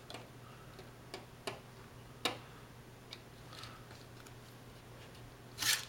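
Victorinox pocket-knife blade scoring a perfboard along a plastic ruler: a few sharp separate ticks and faint scratches as the blade catches the board, the loudest about two seconds in, and a short louder scrape near the end.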